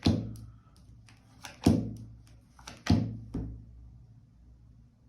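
Tarot cards slapped down one at a time onto a table: three dull thumps roughly a second and a half apart, each dying away quickly, with a softer knock after the last.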